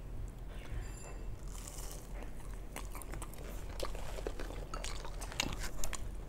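Close-up crunching bites and chewing of crumb-coated fried fish (Bengali fish fry), with a run of crisp crunches in the second half.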